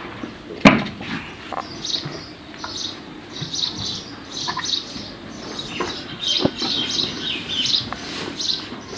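Small birds chirping repeatedly in short high notes, with one sharp knock just under a second in.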